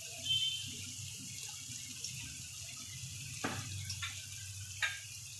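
Spiced onion masala frying gently in a kadai: a low, steady sizzle, with a few faint clicks in the second half.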